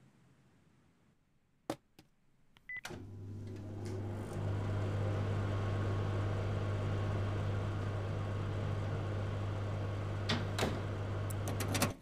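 A sharp click and a brief high beep, then a steady low electrical hum that gets louder about a second later and holds. Several clicks of a door handle come near the end.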